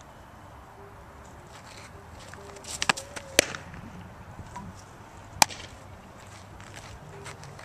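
A softball pitch pops into the catcher's leather mitt with one loud, sharp crack, just after a quick flurry of clicks. About two seconds later a second sharp pop comes as the ball is thrown back and caught in a glove.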